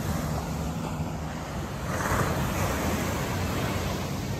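Steady wash of surf on the beach mixed with wind buffeting the microphone, swelling a little about two seconds in.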